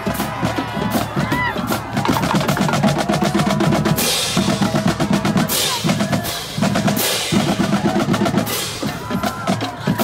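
A drumline playing a cadence in the stands: fast snare drum rolls and bass drum hits, with four cymbal crashes about a second and a half apart starting about four seconds in.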